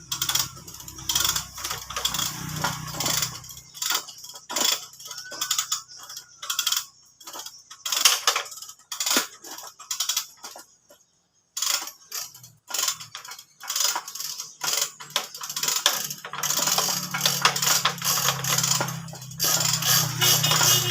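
Irregular metallic clinks and clatter, like hardware and tools being handled, over a steady low hum that fades out for a few seconds in the middle and returns.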